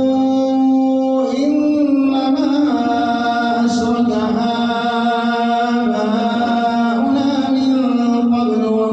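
A man's solo voice reciting the Quran in the melodic tajwid style, drawing out long held notes that step slowly up and down in pitch.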